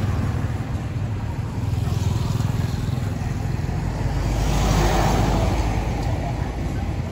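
Road traffic: a motor vehicle's steady engine rumble, swelling as one passes about five seconds in.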